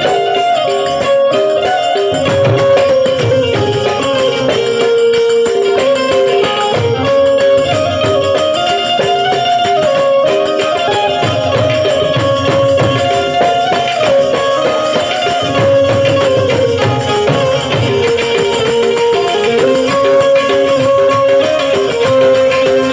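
Devotional folk music: a harmonium plays a held, stepping melody over steady jingling hand percussion.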